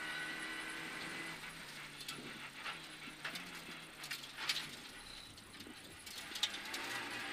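Renault Clio Rally5's turbocharged three-cylinder engine heard from inside the cabin, its note falling as the car slows for a bend and rising again near the end as it accelerates. A few sharp clicks and knocks from the car come through.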